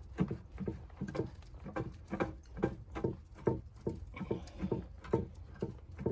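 A person's footsteps, about two steps a second, each step a short dull crunch or thud.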